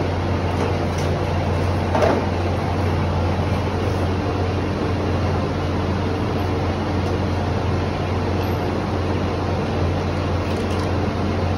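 Steady low mechanical hum, with a single knock about two seconds in.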